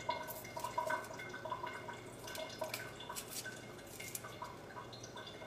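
Dal-and-masala sambar gravy bubbling in a stainless steel pan: a faint, irregular run of small pops and blips, with a few light clicks as a knife scrapes chopped onion and chili into the pan.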